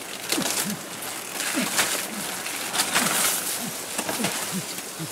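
Short, low animal calls repeat about twice a second, each bending in pitch. Under them runs a crackly rustle of leaves and undergrowth.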